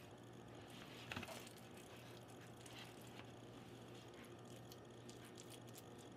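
Near silence: a steady low room hum, with one faint soft scrape about a second in as a spatula scoops ricotta-spinach filling from a plastic bowl and spreads it on a lasagna sheet.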